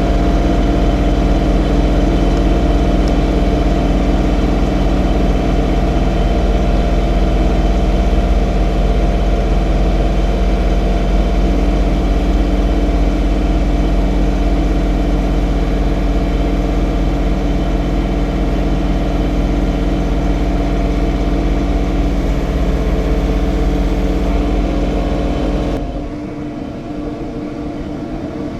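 John Deere 3046R compact tractor's diesel engine running steadily. About 26 seconds in the sound drops suddenly to a quieter, thinner hum.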